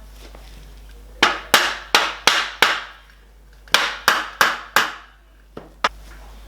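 Hammer blows on aluminium, knocking the bent aluminium channel onto the rectangular tube sections: a run of five strikes about three a second, each ringing briefly, then a run of four, then two light taps near the end.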